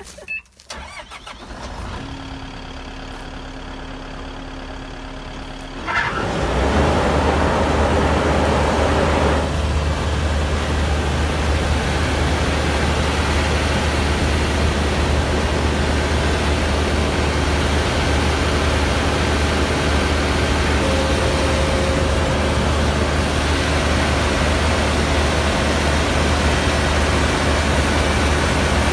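Iseki Japan 6123 combine harvester's diesel engine running steadily close by. A quieter steady hum first, then the sound jumps up sharply about six seconds in and stays loud and even.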